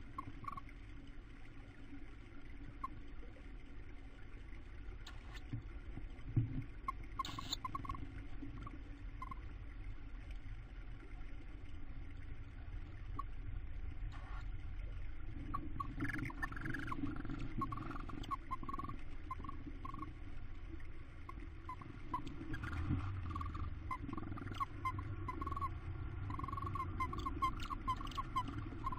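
Tawny owls in a nest box making soft, short, high chirping calls in scattered clusters, with one brief rustle a few seconds in, over a low steady hum.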